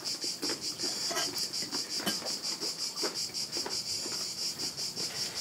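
Insects chirring, a high buzz pulsing several times a second without a break, with faint light knocks of cutlery and dishes at a meal table.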